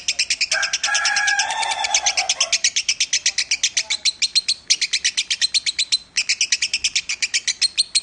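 Lovebird singing with its beak open: a long, rapid trill of high chirps, about ten a second, broken twice briefly in the second half. A lower, drawn-out sound runs beneath the trill for about two seconds near the start.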